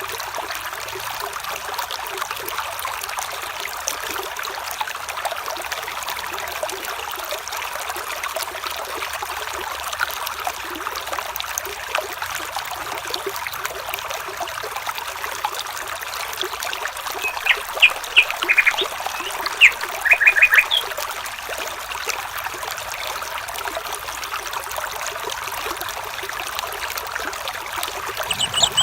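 Running water trickling steadily, like a small stream. A bird calls a few quick, short chirps about two-thirds of the way through.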